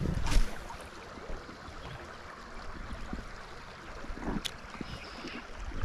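Shallow river water running and rippling steadily, with a brief loud handling bump at the start and a few faint clicks.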